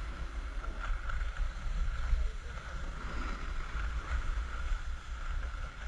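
Wind buffeting the microphone of a camera carried by a downhill skier, a steady uneven rumble, with the hiss of skis sliding over packed snow.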